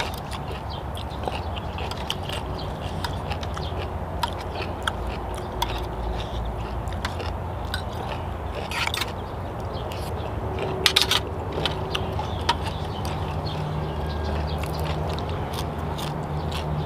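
Close-up chewing and biting of grilled chicken and long-bean salad, with scattered clicks of a spoon and fork against a metal tray; the loudest clicks come about nine and eleven seconds in.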